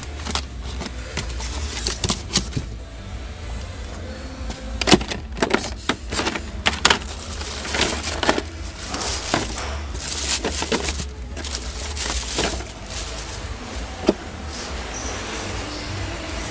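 Speaker packaging handled by hand: cardboard box flaps and inserts knocking and scraping, and plastic bags crinkling as the speakers are lifted out, with irregular clicks and knocks and a stretch of crinkling about halfway through, over a steady low hum.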